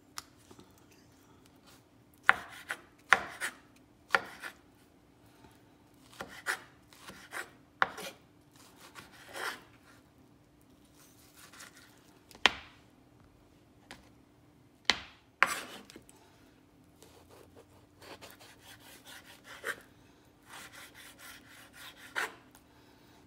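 Kitchen knife chopping boiled eggplant into small cubes on a wooden cutting board: irregular sharp knocks of the blade striking the board, turning to quicker, lighter chopping near the end.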